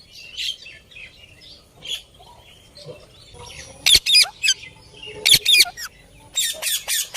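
A parrot squawking. Soft chirps come first, then three quick bursts of loud, sharp calls in the second half.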